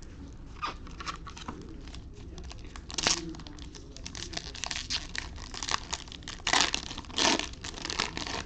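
A trading-card pack wrapper crinkling and tearing as the pack is opened, in irregular crackles, with louder bursts about three seconds in and twice near the end.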